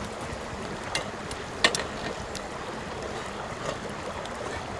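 Wood campfire burning under a mesh grill: a steady rushing hiss with two sharp cracks, about a second in and again shortly after.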